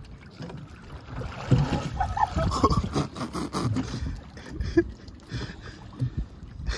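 Water sloshing and splashing around a snorkeller getting into the sea, with wind rumbling on the microphone in uneven gusts.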